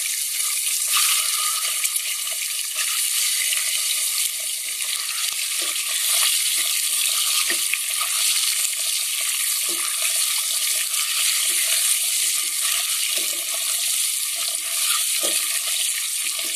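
Peeled boiled eggs sizzling in hot oil with a steady hiss. Light scrapes and taps come every second or so as a wire skimmer turns them in the pot.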